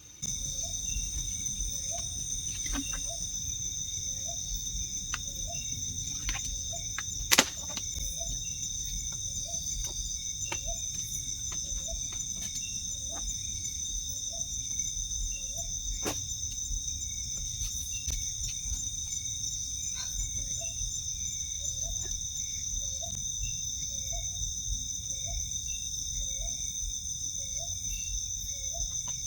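Steady high-pitched chorus of forest insects such as crickets, with a short low chirp repeating about once a second for much of the time. One sharp click stands out about seven seconds in.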